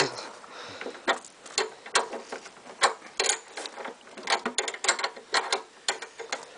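Irregular metallic clicks and taps of hand tools working on a lawn mower, a dozen or more sharp ticks at uneven spacing.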